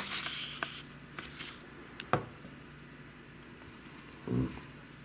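Hands rustling and sliding tracing paper on a worktable, with a sharp click about two seconds in and a dull low knock just after four seconds.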